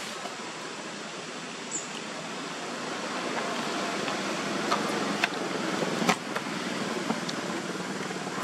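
Steady outdoor background noise, an even hiss that swells slightly partway through, with a handful of short sharp clicks in the second half.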